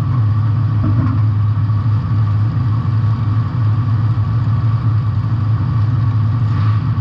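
Compact demolition derby car's engine idling steadily.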